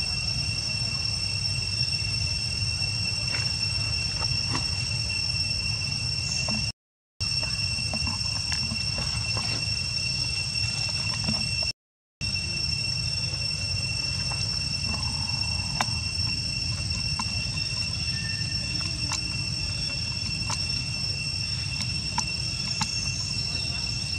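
Steady high-pitched drone of forest insects with a low rumble underneath. The sound cuts out completely twice, briefly.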